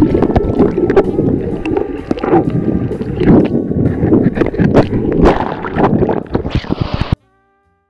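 Water splashing, sloshing and gurgling with a quick run of bubble pops, heard through a camera held underwater and at the surface. It stops abruptly about seven seconds in.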